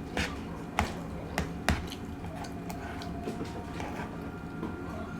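Close-miked eating: wet chewing and mouth sounds, with several sharp clicks in the first two seconds.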